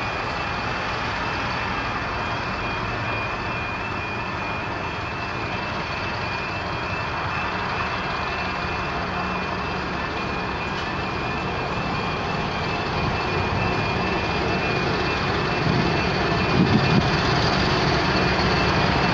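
Diesel train running slowly towards a level crossing, its engine growing louder near the end, with the crossing's warning alarm sounding a steady high tone over it.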